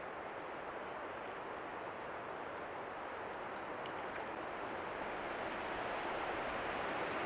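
Creek water flowing in a steady, even rush, growing a little louder near the end.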